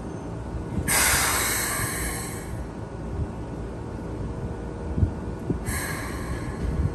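Compressed air hissing from the air brakes of a stationary Keikyu 1000 series electric train, the sort of venting heard in a brake test. One hiss starts suddenly about a second in and fades over a second and a half, and a second, shorter hiss comes near the end, over a steady low rumble from the standing train.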